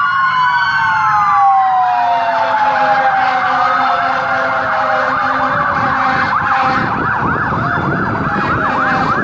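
Emergency vehicle sirens passing, several at once: a slow wail sliding steadily down in pitch, joined about six seconds in by a fast up-and-down yelp.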